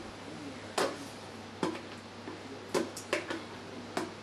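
About six sharp knocks and clicks of a plastic pitcher and utensil against a stainless saucepan as thick orange puree is poured and scraped into it, over a steady low hum.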